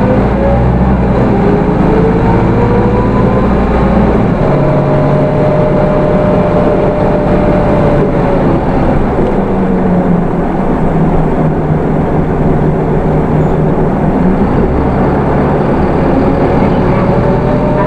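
Inside a Hino Rainbow II bus: its Isuzu 4HK1 diesel and automatic transmission pull with a rising whine for the first few seconds, then settle to a steadier drone under road noise. The engine pulls again near the end.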